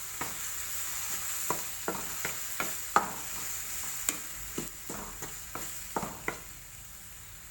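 Diced tomatoes sizzling in hot oil in a metal wok while a wooden spatula stirs them, scraping and knocking against the pan about a dozen times. The stirring stops near the end and the sizzle quietens.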